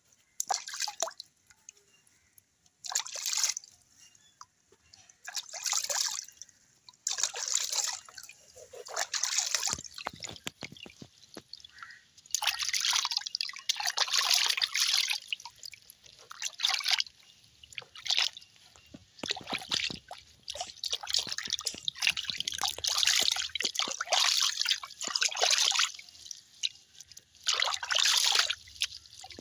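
Water in a plastic basin splashing and dripping as hands rub and scoop it over a kitten's fur during a bath. It comes in irregular bursts of a second to several seconds, with short lulls between.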